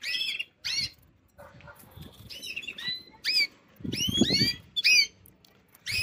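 Red mosaic canaries in wire cages giving short, arching chirps, repeated every second or so, with a low flutter of wings about four seconds in.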